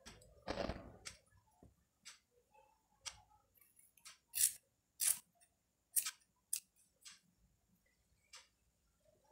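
Scissors snipping the ends of woolen yarn to trim a tassel: a string of short, sharp snips, loudest around the middle. A brief rustle of handled yarn comes near the start.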